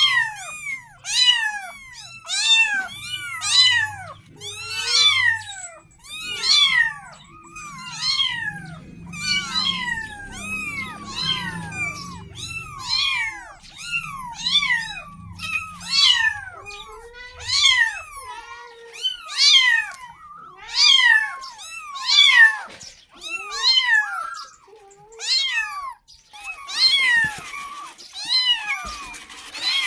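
A litter of young kittens meowing over and over, high-pitched calls that rise and fall, about one a second and overlapping from several kittens at once. They are kittens calling for their mother, wanting milk.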